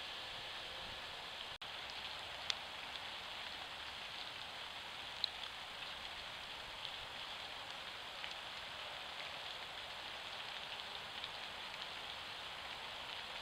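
Steady hiss of a trail camera's microphone, with a few faint ticks and a brief dropout about one and a half seconds in.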